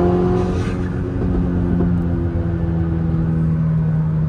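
Turbocharged four-cylinder engine of a Volkswagen Golf R running at a steady speed.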